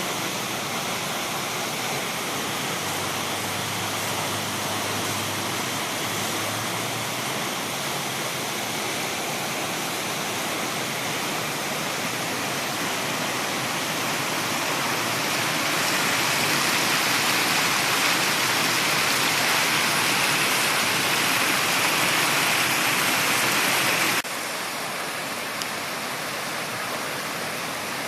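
Floodwater in a swollen river rushing, a steady hiss. It grows louder about halfway through and drops suddenly to a lower level near the end.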